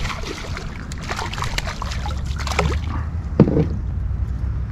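Hooked redfish splashing and thrashing at the water's surface beside the boat as it is brought in. The splashing dies out after about three seconds.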